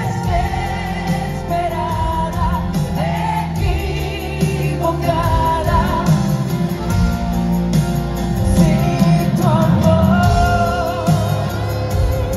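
Live band music with singing over it.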